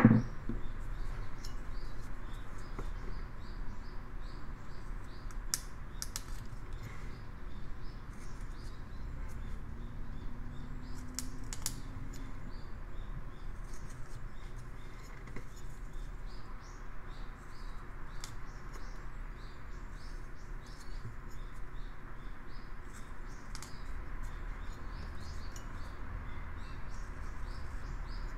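Carving knife taking small paring cuts in basswood: many light, crisp snicks and scrapes. A single sharp knock right at the start.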